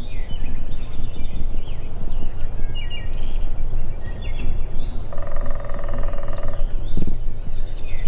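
An eastern wild turkey gobbler gobbles once, about five seconds in: a rapid rattling call of about a second and a half. Small birds chirp over a steady low rumble.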